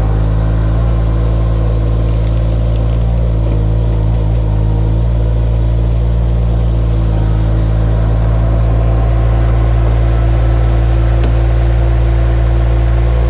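Mini skid steer's engine running at a steady speed as a constant low drone, with a few light clicks and rattles about two to three seconds in.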